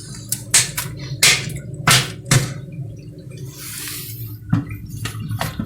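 Lighting a wood-fired boiler with a gas torch: a series of sharp clicks and knocks, with a short hiss about four seconds in, over a steady low hum.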